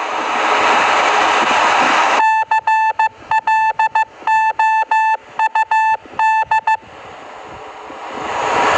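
Morse code beeps at one steady mid pitch, short and long, in five quick groups that spell out the word "cloud". A steady hiss fills the first two seconds and swells back after the beeps stop.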